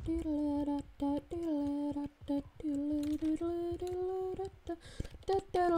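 A tune hummed note by note in one steady mid-range voice, with small slides between notes, over background music with a beat.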